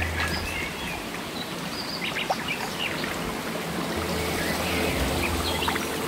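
A stream runs over stones with a steady rushing, small birds chirp briefly here and there, and soft background music with a low bass note sits under it, the bass returning about two-thirds of the way in.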